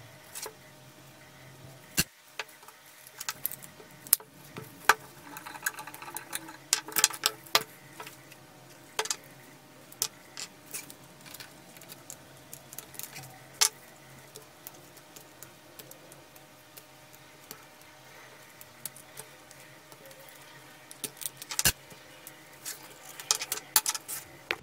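Small brass fittings from a 1955 Muratori pump sprayer clinking and tapping as they are handled and set down on a wooden workbench: scattered sharp clicks, bunched a few seconds in and again near the end.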